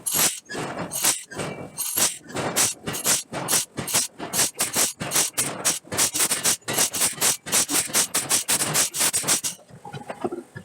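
Rapid repeated hammer blows on steel being forged, about three a second at first and quickening to about five a second, then stopping about a second before the end.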